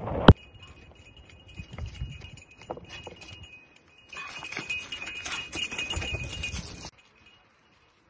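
A mountain bike lands from a jump with one sharp thud, then tyres roll and rattle over a rocky trail for a few seconds before the sound cuts off suddenly. A steady high ringing tone runs underneath.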